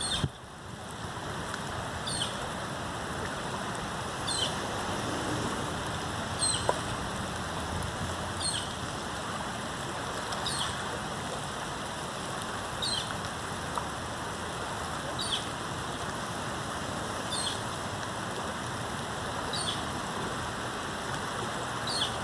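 Steady hiss of rain falling on a river, with a bird repeating a short, high call that drops in pitch, about once every two seconds.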